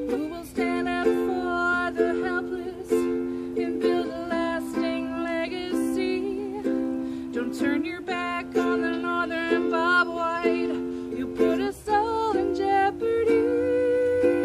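Ukulele strumming chords in a steady rhythm, with a voice singing a melody over it.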